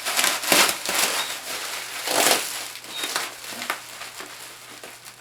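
Bubble wrap and plastic packing crinkling and rustling as they are pulled apart by hand, loudest in two bursts about half a second and two seconds in.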